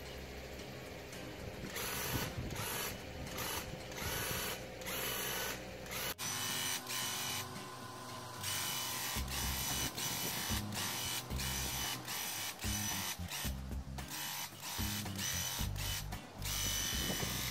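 Graco Ultra handheld airless paint sprayer, its electric piston pump running in short on-off bursts as the trigger is pulled and released during spray strokes.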